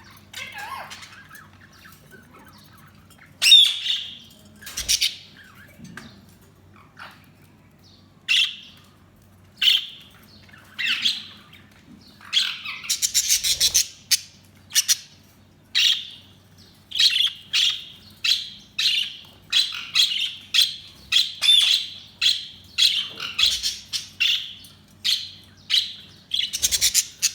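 Budgies chirping and squawking in short, sharp calls, scattered at first and then coming quickly, about two a second, for the second half.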